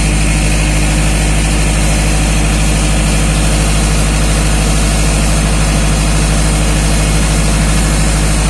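Diesel engine of a crane-manipulator truck running steadily, a loud low drone that holds one pitch without revving up or down.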